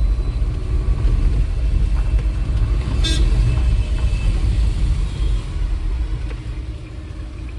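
Low, steady vehicle rumble with one short horn toot about three seconds in.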